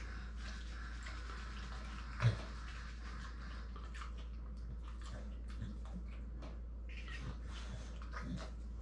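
Dog licking and chewing a small treat: wet, irregular smacks and clicks, with one louder knock a little over two seconds in.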